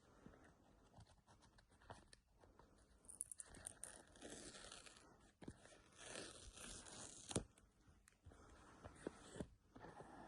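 iPhone box packaging being torn open and handled: faint rustling and tearing with a sharp click about seven seconds in.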